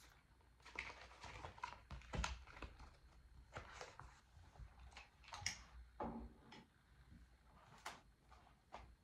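Quiet handling sounds: a small cardboard box and small items being picked up and set down on a table, a string of short light clicks, taps and rustles.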